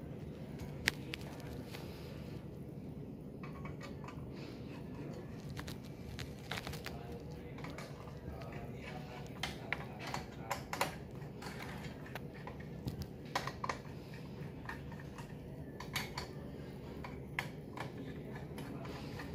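Scattered light clicks and taps of hands handling desktop PC parts, in small clusters, over a steady low hum.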